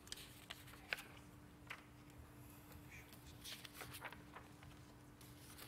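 Near silence: faint room tone with a steady low hum and scattered small clicks and rustles, the sharpest about a second in.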